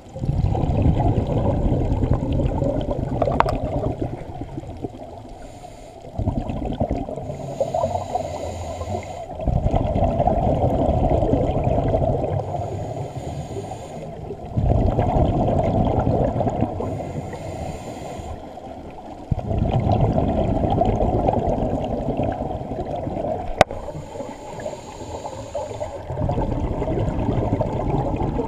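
Scuba diver's exhaled breath bubbling out of the regulator, heard underwater: a gurgling rush of bubbles about every four to five seconds, each lasting a few seconds, with quieter gaps between breaths.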